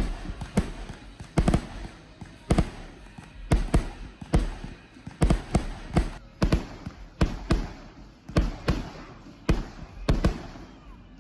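Fireworks going off: a long run of sharp bangs, about one or two a second, each trailing off into a brief rumble.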